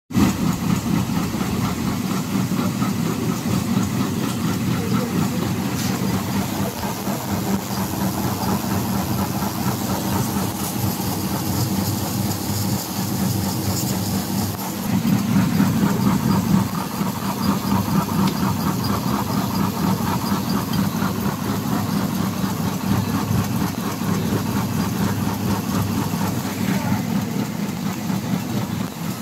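Tube terminal assembly machine running, with its vibratory bowl feeder: a steady mechanical rattle and hum, briefly louder about halfway through.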